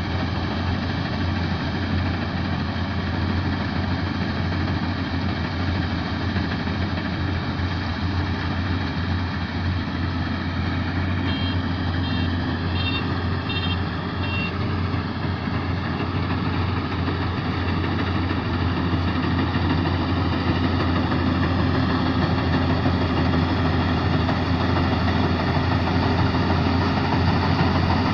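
K-BOS 880 combine harvester's engine running steadily, getting a little louder in the second half. About eleven seconds in, a run of short high electronic beeps sounds about twice a second for a few seconds.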